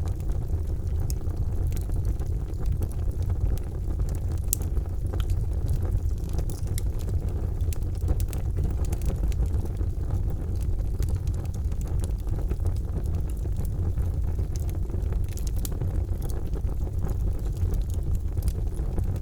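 Charcoal fire burning in a fireplace: a steady low rumble with scattered sharp crackles and pops throughout.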